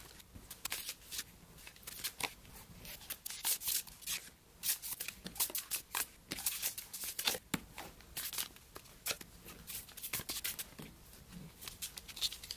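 Tarot and oracle cards being handled and dealt out one by one onto a table: an irregular run of short card snaps, flicks and slides.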